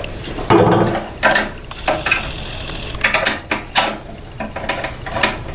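Irregular metallic clinks and rattles as a throttle linkage kit's bracket, rod and screws are handled and set against the Ducar 212 engine's recoil housing, some knocks ringing briefly.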